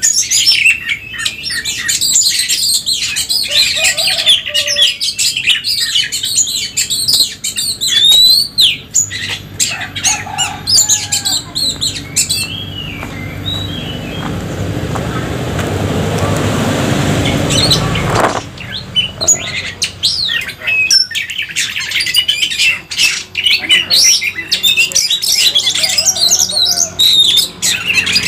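Several oriental magpie-robins singing together, a busy run of quick chirps, whistles and harsh notes. Around the middle the song is covered by a rushing noise that swells for about five seconds and cuts off suddenly.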